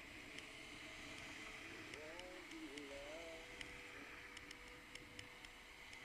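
Faint steady hiss of a bicycle ride, with scattered light ticks and a brief muffled voice about two seconds in.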